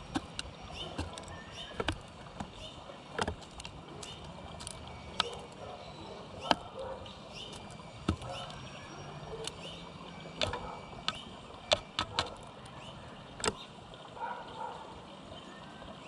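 Sharp, irregular clicks and taps of a male northern cardinal's beak cracking sunflower seeds and pecking against a plastic window feeder, close to the microphone.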